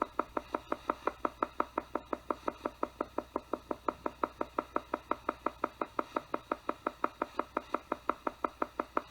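Theta sound meditation track: a pitched tone pulsing on and off evenly at about five pulses a second, a rhythm in the theta range meant to promote a deeply relaxed state.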